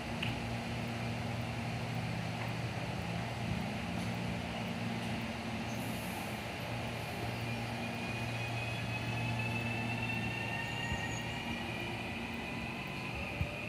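CPTM series 8500 electric multiple unit standing at the platform with a steady low hum, as a series 9500 electric multiple unit pulls in on the next track, its electric drive whining in several thin tones that slowly rise in pitch through the second half.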